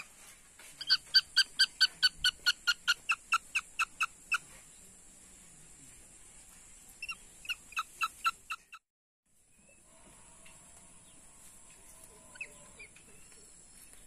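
Young bird of prey calling in rapid series of short, sharp, evenly repeated calls, about five a second, in one long run and then a shorter run a few seconds later, over a steady high hiss.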